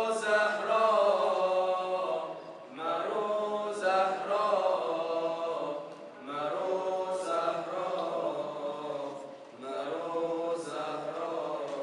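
Male a cappella chanting of an Islamic tawashih (devotional nasheed), with no instruments: long, melismatic sung phrases of about three seconds each, broken by short pauses for breath.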